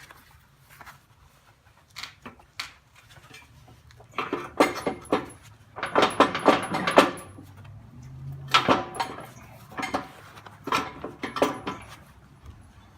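Steel pivot pin being worked out of a compact tractor's backhoe bucket mount: irregular metal-on-metal clanks that ring briefly. There are a few scattered clanks, a dense cluster in the middle, and several more toward the end.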